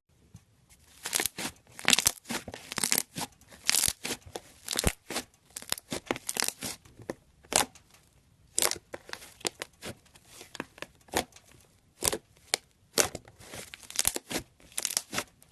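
Slime being squeezed and poked by hand, giving irregular sharp pops and crackles, sometimes several in quick succession and sometimes spaced apart.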